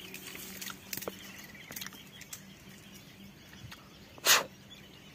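Small clicks and rustles of ripe camachile (Manila tamarind) pods being split and peeled by hand, with one louder sharp crack about four seconds in.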